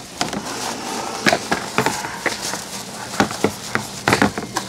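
Long lengths of Schedule 40 PVC pipe knocking and clattering irregularly as they are carried, over a busy store's background noise.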